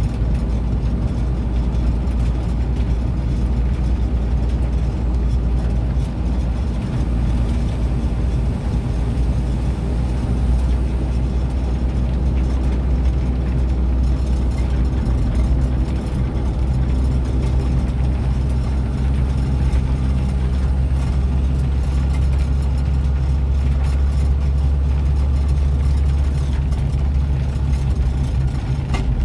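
Vehicle engine and road noise heard from inside the cabin of a moving vehicle on a wet road: a steady low drone, with the engine note dropping a little about two-thirds of the way through.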